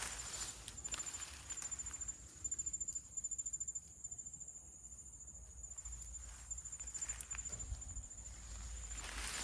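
High-pitched insect trill, like a cricket's, pulsing steadily, with a few soft footsteps and rustles in the undergrowth.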